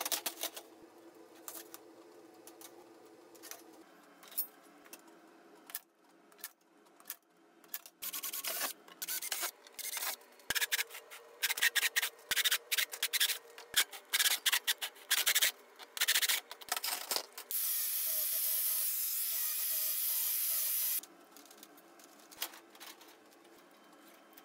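Cordless drill with a step bit cutting holes in thin stainless steel sheet, in a run of short loud bursts and then one steadier stretch of about three seconds. Before the drilling there are light clatters and knocks of stainless sheet panels being handled.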